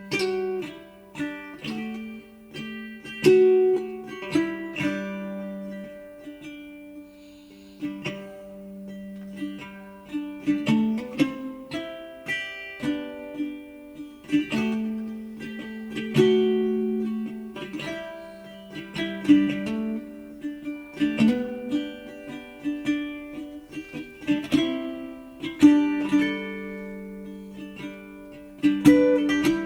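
Slow, gentle music on a plucked-string instrument: single notes and chords plucked one after another, each ringing out and fading.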